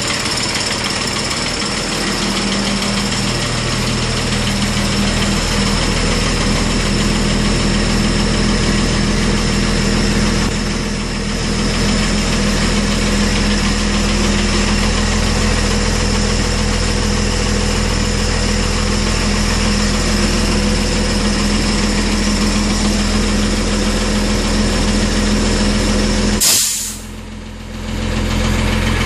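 Cummins diesel engine idling steadily after a cold start. Near the end comes one sharp, loud blast of compressed air as the air dryer purges.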